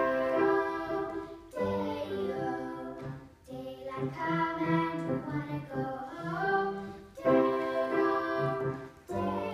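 Two girls singing a duet with piano accompaniment, in phrases broken by short pauses for breath.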